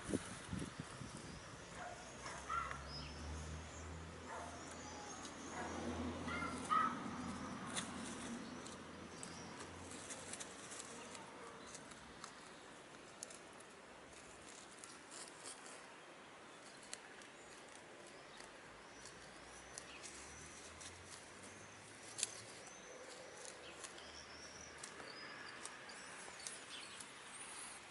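Brown laying hens foraging in grass, clucking softly now and then, mostly in the first several seconds, with small birds chirping in the background. A low rumble sits under the first ten seconds or so.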